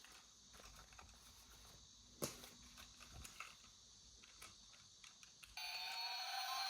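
Faint clicks and light handling noises of a plastic toy, with one sharp click about two seconds in. Near the end a toy's electronic sound effect switches on suddenly: a hiss with siren-like tones gliding up and down.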